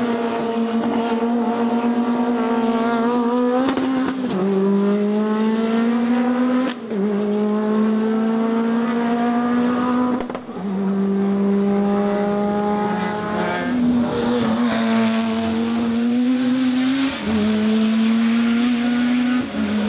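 Turbocharged race car engine running hard through the gears. Its note climbs slowly in each gear and drops sharply at each gear change, every three to four seconds, with one jump up in pitch midway.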